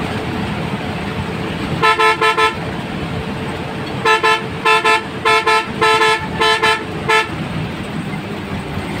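A bus horn honking in short, loud blasts of one steady pitch: a quick cluster of about four about two seconds in, then a longer run of paired honks from about four to seven seconds in. Steady engine and road noise runs underneath.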